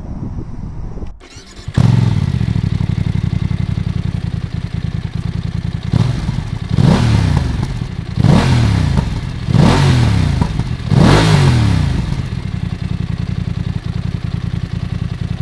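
BMW F 900 XR's parallel-twin engine starting up about two seconds in and settling into an idle. It is then revved in five quick throttle blips, each rising and falling in pitch, and drops back to idle.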